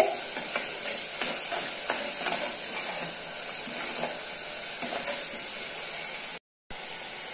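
Tomato paste frying in oil in a clay pot, a steady sizzling hiss, with a steel spoon stirring and scraping against the pot. The paste is being sautéed until its raw smell is gone. The sound cuts out for a moment near the end.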